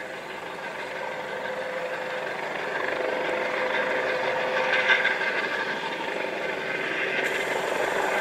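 US Coast Guard MH-65 Dolphin helicopter hovering low over the water: a steady drone of engines and rotor with a constant hum, growing louder a few seconds in.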